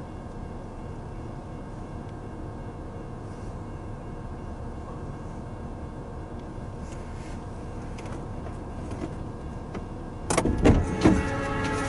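Steady hum of a car idling, heard from inside its cabin. About ten and a half seconds in, a sudden louder clatter breaks in and continues to the end.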